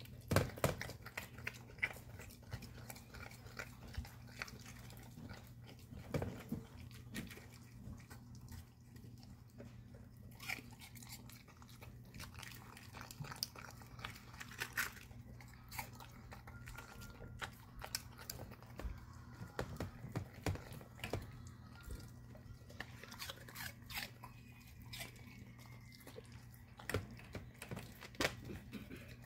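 A pit bull puppy eating raw food (a raw egg with its shell, apple chunks) from a stainless steel bowl: irregular crunching and chewing, with sharp clicks scattered throughout.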